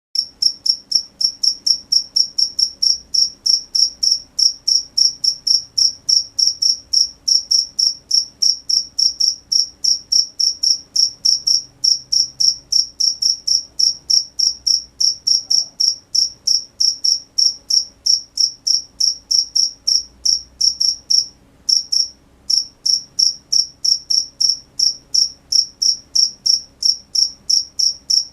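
A cricket chirping in a fast, even rhythm, about three high-pitched chirps a second, with one short pause about three-quarters of the way through.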